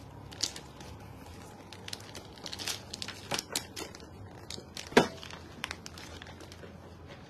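Clear plastic protective wrap on a leather handbag crinkling as the bag is handled, in scattered crackles with one louder click about five seconds in.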